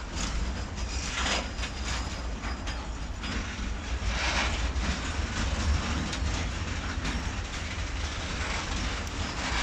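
Freight train of covered grain hopper wagons rolling slowly past, with steady wheel rumble and clatter that is louder about a second in and again about four seconds in.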